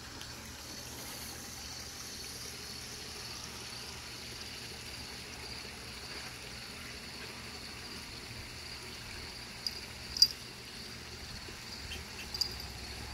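Steady high-pitched outdoor hiss, with a few sharp clicks late on, one much louder than the rest about ten seconds in.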